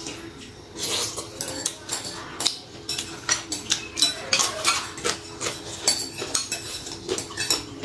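Close-up eating sounds: crunchy bites and chewing of a raw vegetable, with a metal spoon clinking and scraping against a glass rice bowl, heard as many short, irregular clicks.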